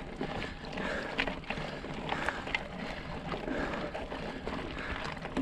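Mountain bike tyres rolling up a gravel dirt track: a steady rolling rumble with scattered small clicks and crunches of loose stones.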